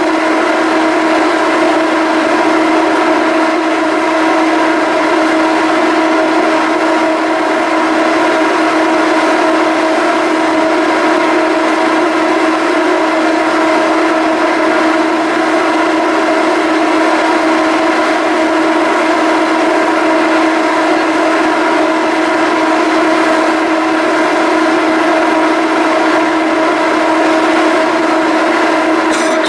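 A ferry's engines and machinery running with a steady, loud drone: one strong low hum with several higher tones stacked above it, unchanging in pitch.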